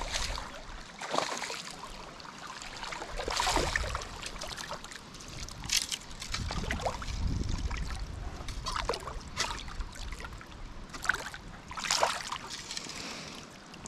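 A hooked smallmouth bass thrashing at the surface while a hand reaches in to land it. The water splashes and sloshes in short, irregular bursts, the loudest about three and a half seconds in and again near the end.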